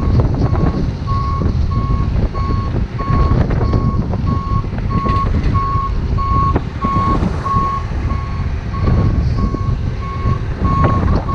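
Reversing alarm of a Manitou 733-115 telehandler beeping about three times a second at one steady pitch, over the telehandler's diesel engine running as it lifts a bulk bag of fertiliser.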